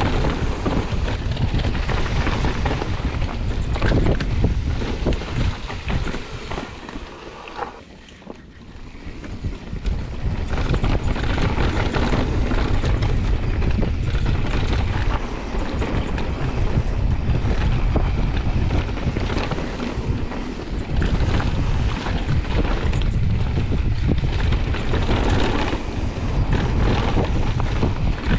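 Mountain bike descending a loose dirt and gravel trail: wind buffeting the microphone with a heavy low rumble, over the crunch and rattle of tyres and bike parts on rough ground. It quiets briefly about eight seconds in as the bike slows, then picks up again.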